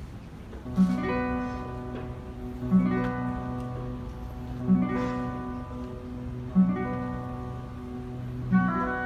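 Classical guitar strumming a chord about every two seconds, starting about a second in, with the chords held underneath by a string orchestra.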